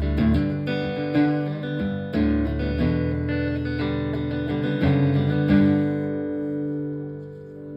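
Acoustic guitar playing the closing chords of the song, the last chord ringing out and fading away near the end.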